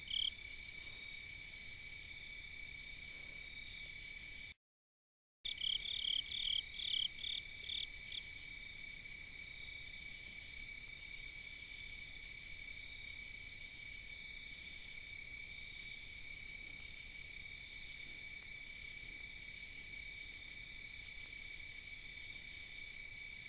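Night chorus of crickets and other insects: steady high trilling at several pitches, with louder rapid chirps repeating at the start and again for a few seconds after a brief total dropout about five seconds in.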